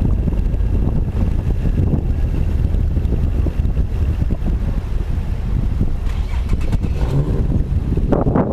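BMW E36 325is being driven, with a heavy, uneven rumble from underneath the car. It is the sound of the rear differential loose on a broken mounting bolt, rubbing and knocking around the driveshaft area.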